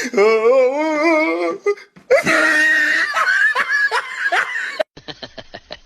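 Loud laughter, wavering up and down in pitch, then a noisier stretch. It cuts off sharply about five seconds in.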